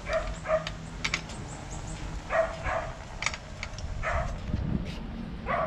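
A dog barking, about half a dozen short barks at uneven intervals, with a few sharp clicks about a second in.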